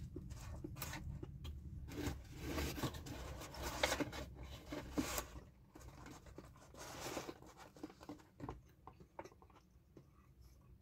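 Close-up eating sounds: chewing a sandwich, with crunching and rustling from about two seconds in to about five seconds in and again briefly near seven seconds, then quieter chewing with scattered small clicks.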